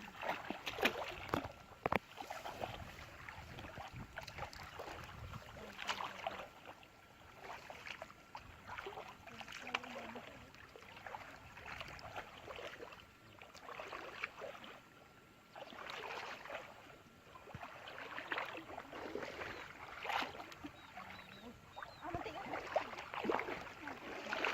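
Water splashing and sloshing in irregular bursts, with a few sharp clicks.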